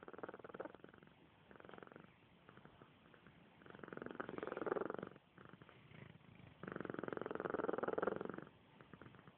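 Domestic cat purring, the purr swelling and fading with each breath: a few faint swells, then two louder stretches of one and a half to two seconds each.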